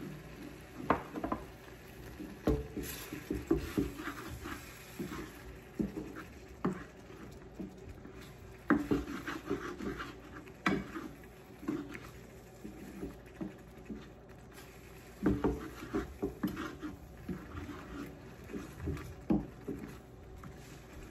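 Wooden spatula stirring a simmering sauce of tomatoes in a pan, knocking and scraping against the pan in irregular, uneven strokes.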